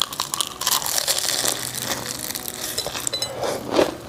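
Biting into and chewing an oven-reheated egg tart with a croissant-pastry crust: its flaky layers crackle and crunch close to the mouth. The crackling is dense for about the first three seconds, then eases to softer chewing near the end.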